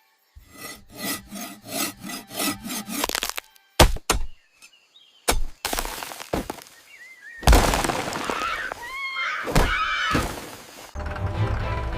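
A quick run of knocks for about three seconds, then several sharp cracks and a loud crash with breaking sounds. Music with a bass line comes in near the end.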